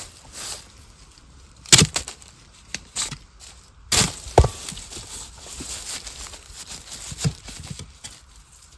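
A young wild bamboo shoot being chopped off at its base with a long-handled tool: a series of sharp woody strikes and cracks, the loudest about two and four seconds in.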